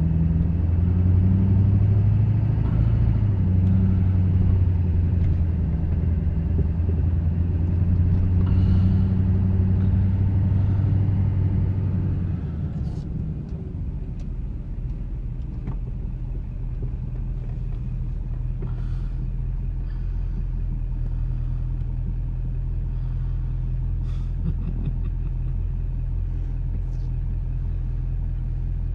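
Truck engine heard from inside the cab, pulling steadily under load with a deep drone, then easing off about twelve seconds in to a lower, steady running hum as the truck slows and rolls up to a stop.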